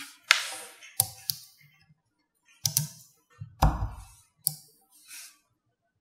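Small magnetic balls clicking and clacking as hand-built sections made of them are pressed and snapped together: about seven sharp clicks at uneven intervals, the loudest a little past the middle.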